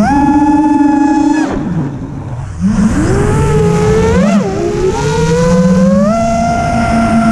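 Brushless motors and 7-inch propellers of an FPV racing quadcopter (2508-size 1200kV motors on a 6S battery) whining under changing throttle, heard through the onboard camera. The pitch jumps up and holds, drops on a throttle cut about a second and a half in and goes quieter for about a second, then climbs again with a short sharp punch about four seconds in and steps up to a steady higher pitch near six seconds.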